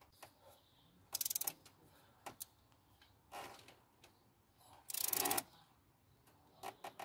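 Ratchet wrench clicking in two quick bursts of rapid clicks as the handle is swung back, tightening a spark plug down in a K-series engine's plug well.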